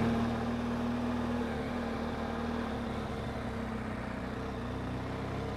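Motorcycle engine running steadily at low revs, a constant even hum with no revving.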